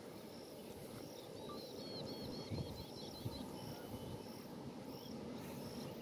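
Outdoor ambience: insects chirping in regular high pulses, a little under two a second, over a low steady rumble. A bird gives a quick run of chirping notes a second or two in.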